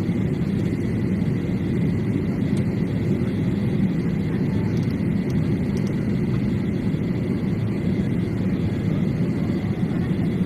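Steady cabin noise of a flydubai Boeing 737 airliner on its approach to land: a constant low rumble of jet engines and rushing air, with a faint high whine held on one note.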